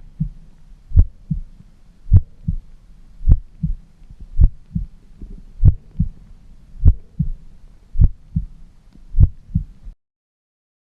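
Heartbeat sound effect: a slow, steady heartbeat of nine double beats (lub-dub), a little under one a second, over a low hum. It stops shortly before the end.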